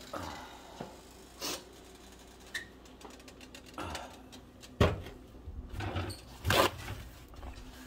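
A few scattered knocks and clicks of household handling, the two loudest about five and six and a half seconds in, over a faint steady hum.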